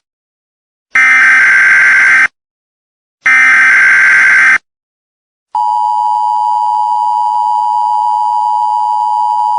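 Emergency Alert System broadcast tones: two digital SAME header data bursts about a second and a half long, a second apart. About five and a half seconds in, the steady two-tone EAS attention signal begins and holds.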